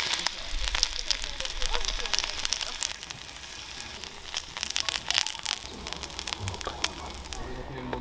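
Hot fat sizzling, with many sharp pops and crackles from freshly pan-fried meat; the sizzle stops just before the end.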